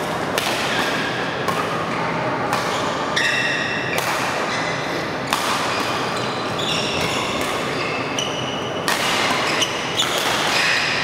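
Badminton doubles rally: rackets striking the shuttlecock in sharp smacks, with short high squeaks of shoes on the court floor. Under it is the steady background noise of a large sports hall with games on other courts.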